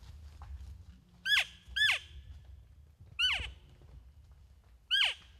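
Elk calling: four short, high squeals that each slide steeply down in pitch, the first two close together and the others spaced out.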